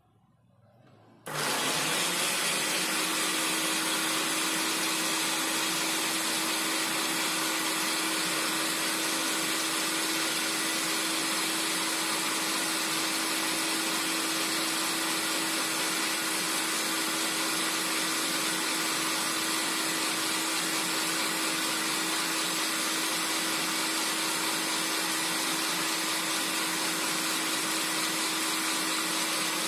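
Bolde Super Processor food processor switched on about a second in, its motor running steadily and spinning the citrus-juicer cone as a lemon half is pressed onto it. A steady tone rises out of the motor noise shortly after it starts.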